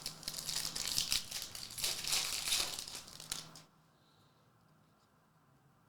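Crinkling and crackling of a trading card pack's foil wrapper as it is opened and handled, lasting about three and a half seconds, then stopping abruptly.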